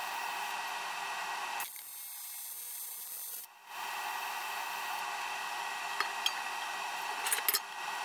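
TIG welding arc on aluminium: a steady buzzing hiss as tack welds go onto a thick aluminium bung on an aluminium pipe, with the welder run hot. The hiss changes about a second and a half in and cuts out briefly about three and a half seconds in.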